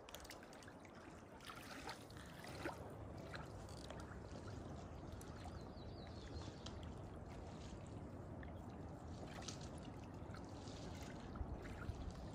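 Faint lake water lapping at the shore.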